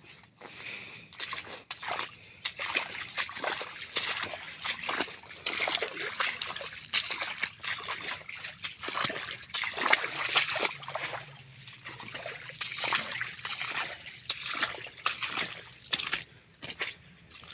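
Water splashing and sloshing in quick, irregular strokes, busiest in the middle and thinning out near the end.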